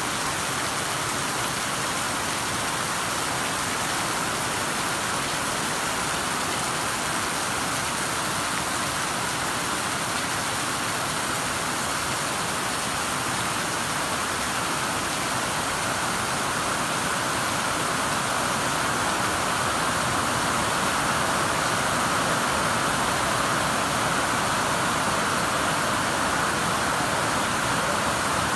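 Heavy rain falling steadily on and around the metal roof of a shelter, with water pouring off the roof's edge; it grows slightly louder in the second half.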